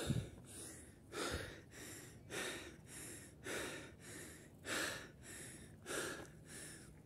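A man breathing hard close to the microphone, winded from a steep climb, with one in-and-out breath about every 1.2 seconds. A low thump sounds right at the start.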